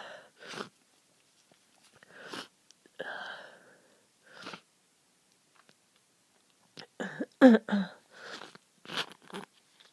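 A person with a stuffy head cold sniffling in short bursts, with a drawn breath, then one loud sneeze about seven seconds in, followed by a few more sniffs.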